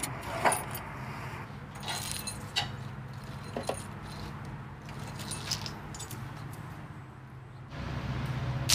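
Metal fittings clinking and a steel braided fuel hose scraping and rattling as it is unclipped and dragged out from under a truck, in scattered clicks and scrapes with a sharper click near the end, over a low steady hum.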